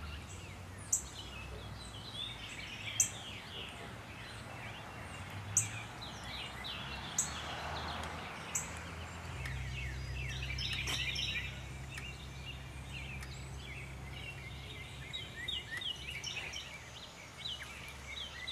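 Outdoor ambience of birds chirping in quick, repeated short notes, with a few sharp high chips in the first half, over a low steady hum.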